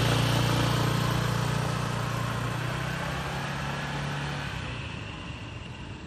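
Motor scooter engine running as the scooter pulls away, its steady hum fading as it rides off and dropping out about four and a half seconds in.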